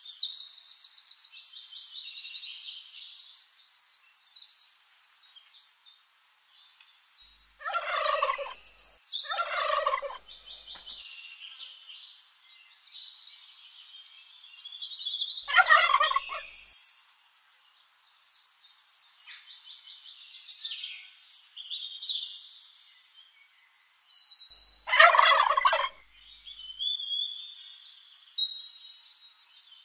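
Wild turkey toms gobbling four times: two gobbles close together about eight and ten seconds in, another around sixteen seconds, and the loudest about twenty-five seconds in. High chirping and twittering fill the gaps between them.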